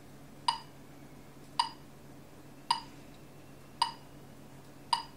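Short, sharp ringing ticks repeating at an even pace of about one a second, five in all, over a faint steady hum.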